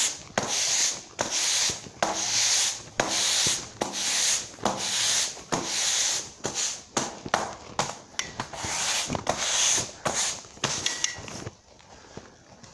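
Broom sweeping a concrete shop floor in repeated scraping strokes, about one a second, stopping near the end.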